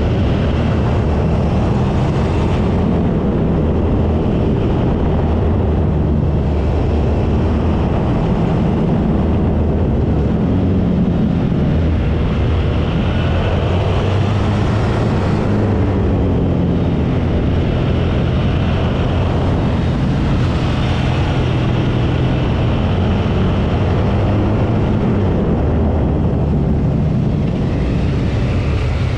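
Suzuki V-Strom 650's V-twin engine running under way, its note rising and falling with the throttle, over steady wind and road noise.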